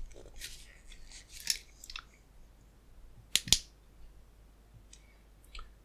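Plastic rubbing and rustling as a lamp's bayonet cap is worked into a small plastic bayonet adapter, then one sharp click about three and a half seconds in as it locks into place, with a couple of small ticks near the end.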